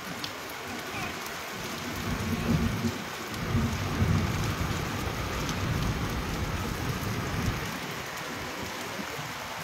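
Heavy rain pouring steadily onto a flat concrete rooftop and wet surroundings, an even hiss. A low rumble swells up twice in the middle.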